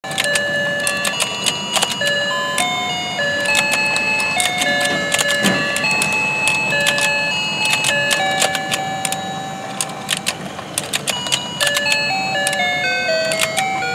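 Battery-powered toy fishing game playing its electronic tune, a simple melody of single stepping notes, over frequent plastic clicking from its turning plate and the fish mouths opening and closing.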